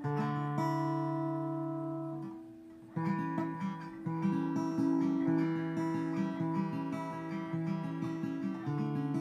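Guitar strummed: a chord rings out and fades over about two and a half seconds, then from about three seconds in a run of quick strums and picked notes.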